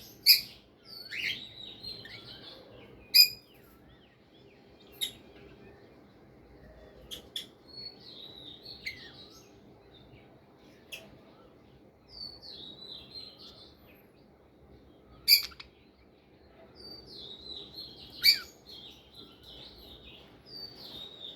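Budgerigars chirping in short, separate calls every second or two, with a few sharp, loud chirps among them.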